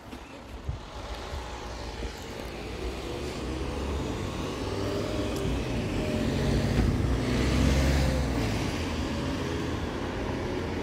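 Road traffic passing a level crossing: a vehicle's engine grows louder over several seconds, peaks about eight seconds in, then fades, over a low rumble of tyres.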